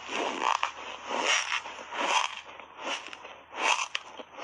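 Close-miked chewing of a mouthful of squeaky compacted shaved ice dusted with matcha and milk powder: about five crunches, evenly spaced a little under a second apart.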